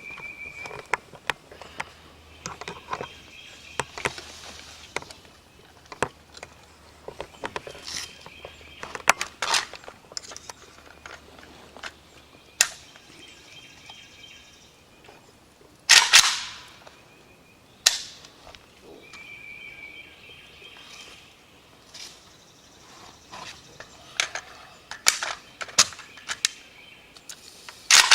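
Gunshots from an AK-pattern rifle and a Glock pistol, fired singly at irregular spacing in a rifle-to-pistol transition drill. The loudest cracks come about halfway through and at the very end.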